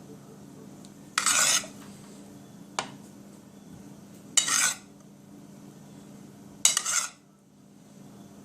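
A utensil scraping and clinking against a dish three times, short strokes a few seconds apart, with a single sharp tap between the first two, as chicken is served onto the wrap.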